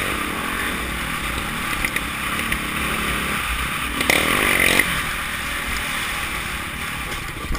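Dirt bike engine running while the bike is ridden, with a brief rise in engine pitch about four seconds in.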